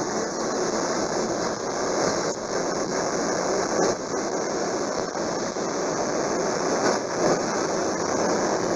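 Steady, loud static hiss from a homemade FM crystal radio with no station coming through clearly.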